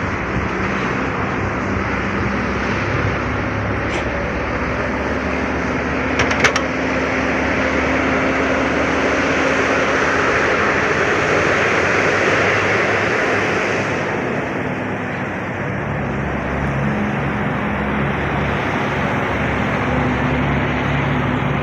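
Heavy American truck engine running, a steady loud drone with a low hum, with a few brief clicks around four and six seconds in.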